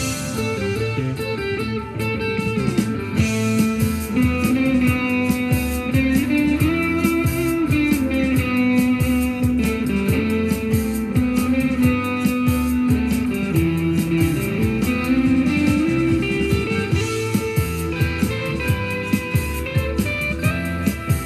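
Electric guitar playing single-note lead lines with bent notes that glide up and down in pitch, over a steady rhythmic pulse.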